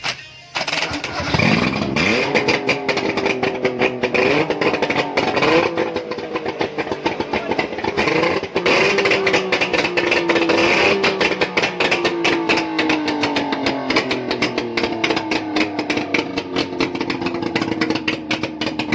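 A two-stroke engine, run out of its car, starts about half a second in, is revved up in a few short blips, then runs with its speed slowly settling lower, with a rapid pulsing throughout. It is being run to check the sound of its connecting rod.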